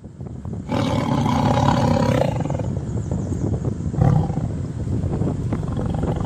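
A loud, rough roar-like sound that starts about a second in and lasts over a second, swelling again around four seconds, over a steady low rumble.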